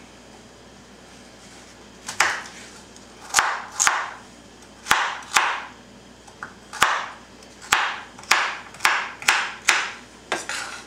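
Chef's knife chopping carrots on a wooden cutting board: about a dozen sharp knocks at an uneven pace, starting about two seconds in and coming faster toward the end.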